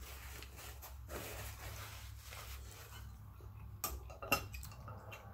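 Soft rustling for about three seconds, then two sharp clinks of tableware on a plate about four seconds in, during a meal.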